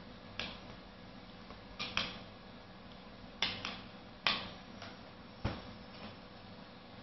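Sharp, irregular clacks of a nunchaku being swung and caught, about nine knocks at uneven intervals as the sticks strike each other and the hands.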